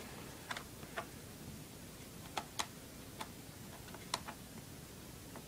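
Small screwdriver and hands clicking against a screw and the plastic underside of a laptop: a few faint, sharp ticks at irregular intervals while a stuck screw is worked loose.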